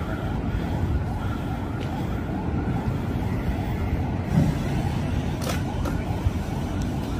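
Steady city traffic rumble with distant emergency-vehicle sirens wailing, a brief low thump about four seconds in.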